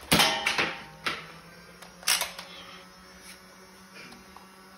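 Foam-dart blaster firing during a Nerf battle: several sharp clacks and knocks in the first two seconds, then quiet apart from a low steady hum.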